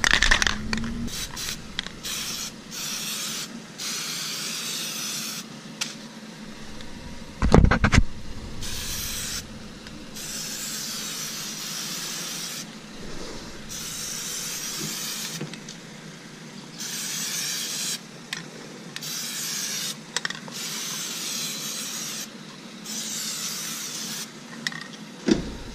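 Plasti Dip aerosol spray can hissing in repeated short bursts of a second or two each, laying a light first coat of rubber coating. A single loud thump about eight seconds in.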